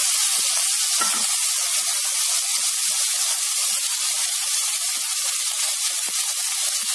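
Sliced shallots sizzling steadily in hot oil in an aluminium pressure cooker, with a few faint crackles from the tempering spices.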